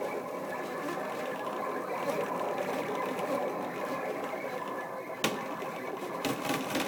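Stepper motors of a Rostock delta 3D printer whining and changing pitch as they drive the carriages up and down the towers through G-code moves. There is a sharp click about five seconds in and a few more near the end.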